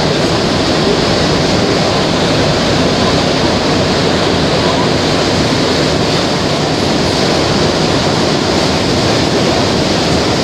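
A rubber-tyred Montreal metro train running through a tunnel, heard from inside the car as a loud, steady rushing noise with no breaks.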